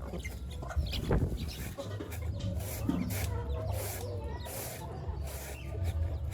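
Chickens clucking, over a run of short scratchy noises about twice a second and a steady low rumble.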